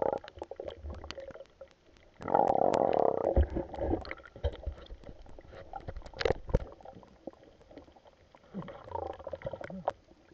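Muffled underwater gurgling and bubbling picked up by a camera in its waterproof housing, with many sharp clicks and knocks. A louder gurgling rush comes about two seconds in, and a few dull thumps follow around the middle.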